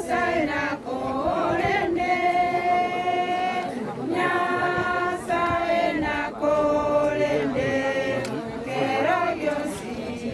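A group of voices singing together, unaccompanied, in slow phrases of long held notes.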